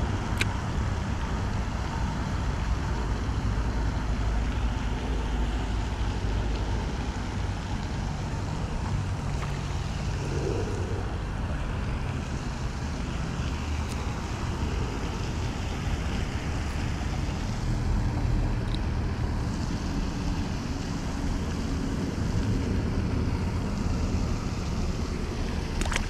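Steady wind noise rumbling and hissing on the camera microphone, with no clear separate events.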